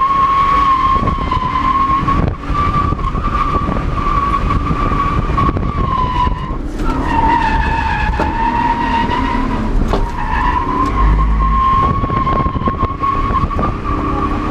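Tires squealing in a long, steady drift on a BMW E36, with a brief break about halfway where the squeal drops slightly in pitch, over the engine running underneath.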